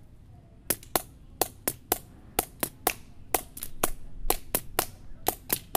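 Sharp taps of a stick played in an even, repeating pattern, several a second: a sixteenth-note rhythm placed on the 'e' and 'a' of each beat, offset by a sixteenth from plain eighth notes.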